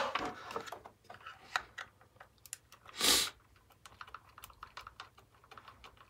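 Light clicks and taps of a small plastic speaker cabinet being handled and turned over as a small Phillips screwdriver is fitted into the screws on its back. There is one short rustle about three seconds in.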